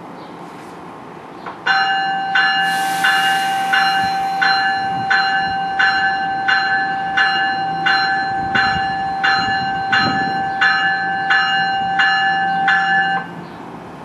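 Railroad warning bell ringing steadily, about one and a half strikes a second, with a held ringing tone under the strikes. It starts about two seconds in and stops suddenly near the end, over the low rumble of an arriving train.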